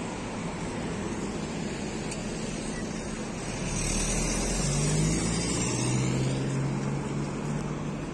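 Road traffic noise with a car driving past close by: its tyre and engine noise swells about four seconds in, then drops slightly in pitch and fades near the end.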